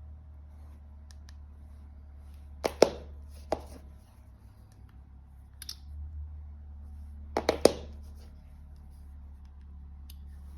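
Sharp clicks and knocks in two short clusters about five seconds apart, a few strikes each, over a steady low hum.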